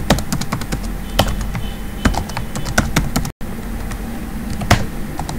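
Typing on a computer keyboard: quick, uneven keystrokes, most rapid in the first couple of seconds and sparser after, with a split-second dropout in the sound a little past the middle.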